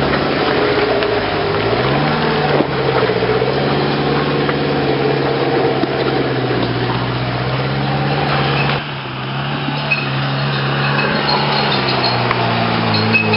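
Off-road 4x4 engine running under load in deep mud, its note rising and falling as the throttle is worked. The sound changes about two-thirds of the way through, as another engine takes over.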